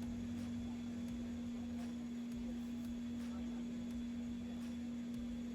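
Steady machine hum holding one unbroken pure tone, with a low rumble underneath.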